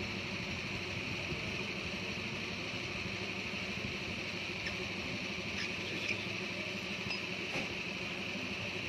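Steady background street noise: a low traffic hum with a constant hiss, and a few faint clicks from about five and a half to seven and a half seconds in.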